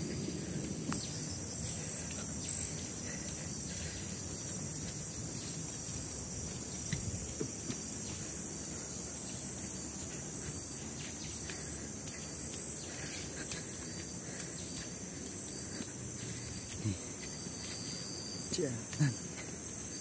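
Steady, high-pitched chorus of tropical forest insects, crickets or cicadas, running unbroken throughout, over the low rustle of a handheld phone carried while walking.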